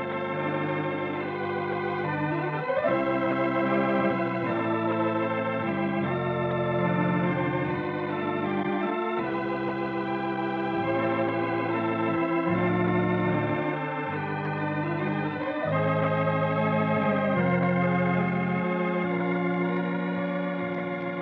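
Organ playing the program's closing music in slow, sustained chords that change every second or two, beginning to fade near the end.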